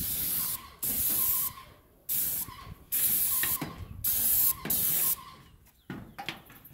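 Paint spray gun hissing in short bursts as the trigger is pulled and released: about six half-second bursts, each starting and stopping abruptly, the last ending a little after five seconds in.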